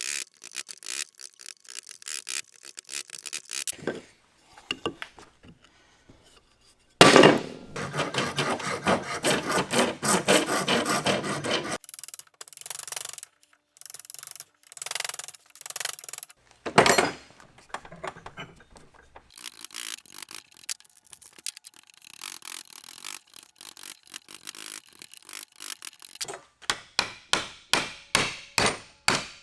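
Hand tools working wood in a string of short spells: back-and-forth sawing, filing and rasping strokes on a hardwood block, with a run of quick, regular strokes near the end.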